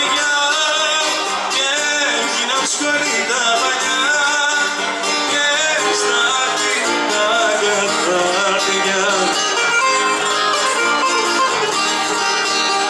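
Live acoustic music: an acoustic guitar and a second plucked string instrument playing an instrumental passage of a Greek song, with melodic runs over strummed accompaniment.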